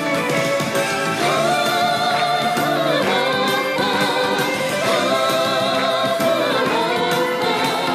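A female vocal group sings over electric band accompaniment, holding long sung notes.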